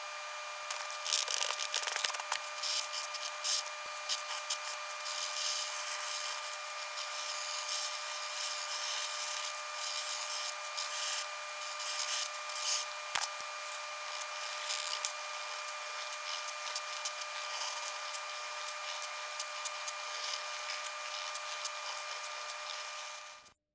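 Fast-forwarded pencil and chisel-tip marker scratching on grid paper: a dense run of rapid, irregular scratches over a steady hum. It cuts off suddenly near the end.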